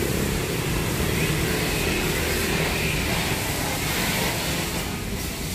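Street traffic noise: a steady low rumble of passing vehicles, swelling briefly in the middle.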